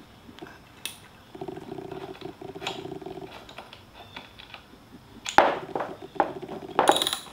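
Socket ratchet wrench clicking rapidly as it turns the bottom bolt of a Honda Shadow fork leg, snugging it only lightly. A few sharp metal knocks come in the last two seconds.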